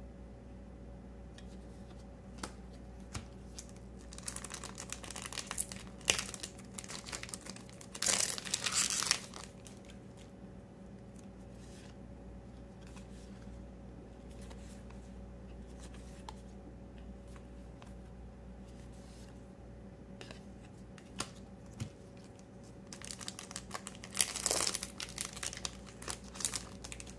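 Foil trading-card booster pack wrappers crinkling and tearing open, with cards clicking and sliding against each other as they are handled. The crinkling comes in two spells, about four to nine seconds in and again near the end, loudest about eight seconds in.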